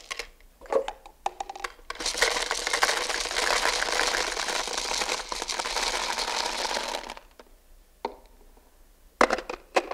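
A cupful of small 3D-printed octahedra being poured into a bottle: a few separate clicks, then a dense rattling stream of many small pieces for about five seconds that stops abruptly, with a few more clicks near the end.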